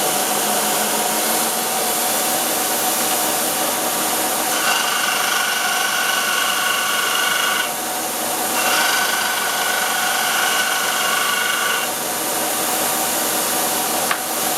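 Shop-built 1x42 belt grinder, driven by a three-phase motor on a variable-speed drive, running steadily at high speed. Twice, for about three seconds each, a higher steady whine rises over the running sound, then drops away.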